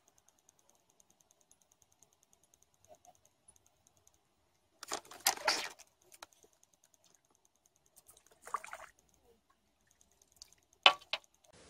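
Short bouts of splashing and rod-handling rustle as a small sharpbelly is struck and pulled out of the water on a float rod: a longer bout about five seconds in, a shorter one after eight seconds, and a sharp click near the end.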